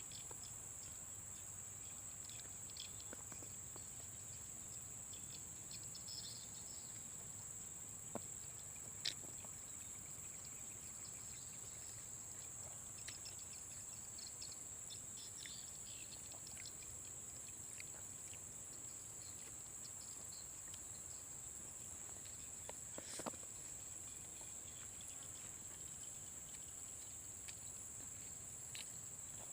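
A steady, high-pitched drone of forest insects that does not let up, with a few faint clicks scattered through it.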